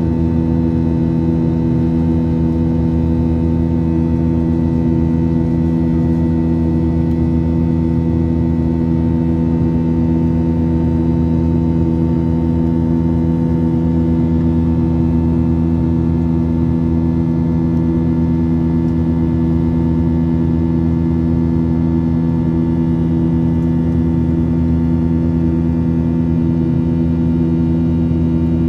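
Cabin noise inside a Boeing 737-800 climbing after takeoff: the CFM56-7B turbofan engines' steady hum, with several held tones, over a constant rush of airflow.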